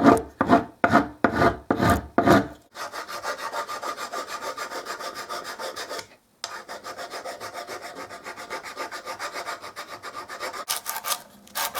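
Hand rasp filing the end of a wooden broom handle to shape it down. The strokes are heavy and regular for the first two seconds or so, then quicker and lighter. There is a brief pause about six seconds in, and a few sharper strokes come near the end.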